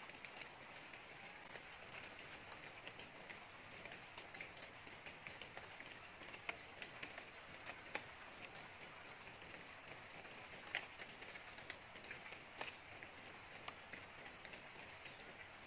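Faint forest ambience with a steady high hiss, broken by scattered light crackles of dry leaf litter as a red junglefowl rooster steps about on it.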